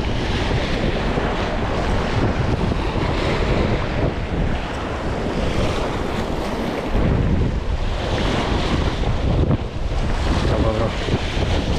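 Sea waves washing and splashing against a rocky breakwater, with wind buffeting the microphone in a steady low rumble.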